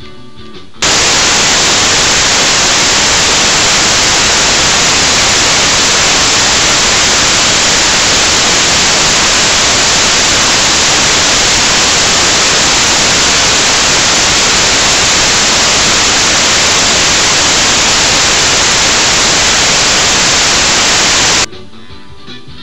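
Loud, even static hiss like white noise, with no pitch to it: a glitch in the video's audio track. It cuts in suddenly about a second in and stops just as suddenly about a second before the end.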